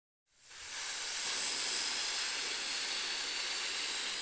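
A steady, high-pitched hiss that fades in shortly after the start and holds even.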